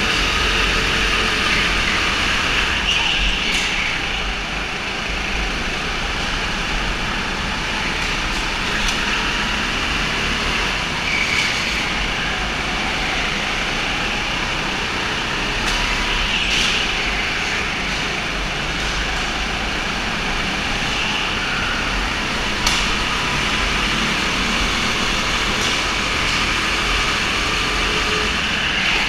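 Go-kart engines running without a break during an indoor kart race: a steady, loud mechanical din with a few brief rises.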